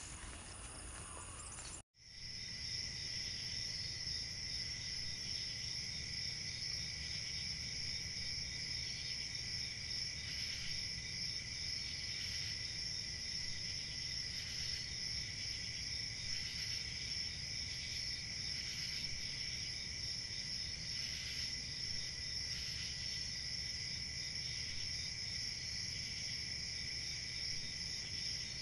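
Night-time crickets chirring steadily in a continuous high-pitched chorus. It starts abruptly about two seconds in.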